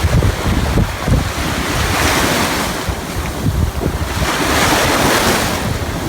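Ocean surf breaking on a beach, with two waves washing in about two seconds and four and a half seconds in. Wind is buffeting the microphone with a steady low rumble throughout.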